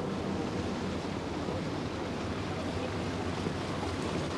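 A pleasure launch's motor runs steadily with water wash around the hull, and wind blows on the microphone.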